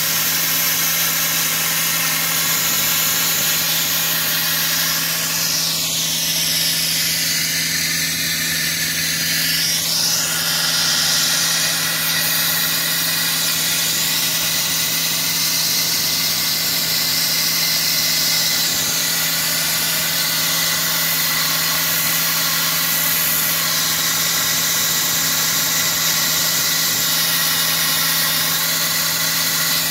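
Sandblasting log siding: the steady, dense hiss of the blast nozzle over an engine running at a constant speed. The hiss sweeps in pitch for a few seconds about six to ten seconds in.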